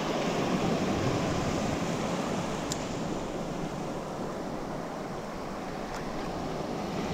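Shallow surf washing up over the sand: a steady rush of breaking waves and foam.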